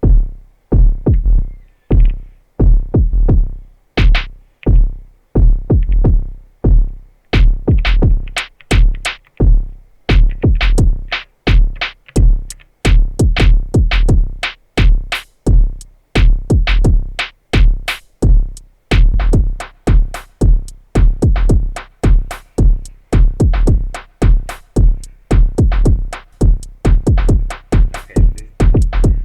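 Elektron Digitakt II drum machine playing a looped electronic beat: a heavy deep kick and bass pulse about twice a second, with sharper high percussion hits that grow busier after the first several seconds.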